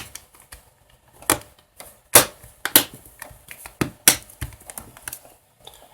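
Plastic back cover of a Highscreen Boost 2 SE smartphone being pressed onto the body, its latches snapping into place in a series of sharp clicks.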